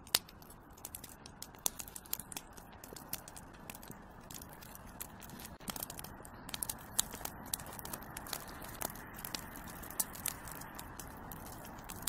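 Fire crackling, faint: irregular sharp pops and snaps over a soft, steady hiss.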